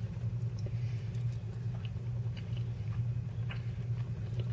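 A person chewing a mouthful of food, with small faint wet clicks of the mouth, over a steady low hum.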